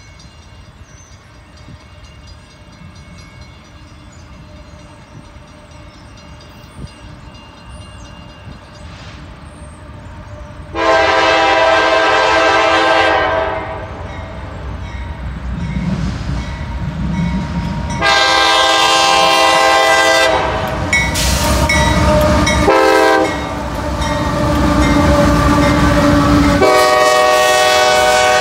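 Freight locomotive air horn sounding four blasts, the third shorter than the others, a long-long-short-long pattern typical of the grade-crossing signal. A rumble builds under it as the train approaches.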